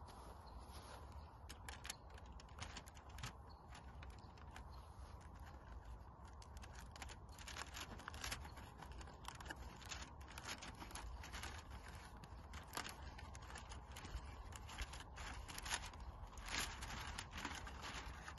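Aluminium foil over a roasting tray crinkling and rustling as gloved hands handle it, in many small irregular crackles.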